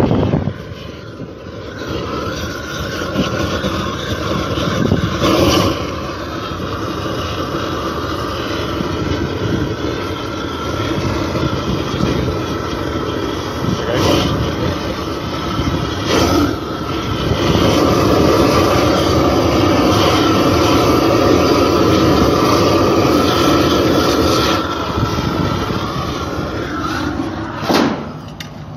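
Gas roofing torch burning with a steady rushing noise as it heats a bucket of liquid bitumen membrane to melt it. The noise grows louder past the middle and falls away just before the end.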